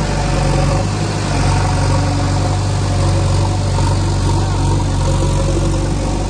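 JCB 3DX backhoe loader's diesel engine running steadily with a low hum while the backhoe arm works, a little fuller from about a second in.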